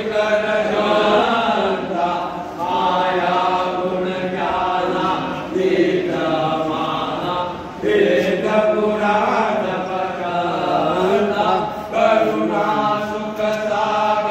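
Devotional Hindu chanting to Krishna, sung in phrases of a few seconds with short breaks between them.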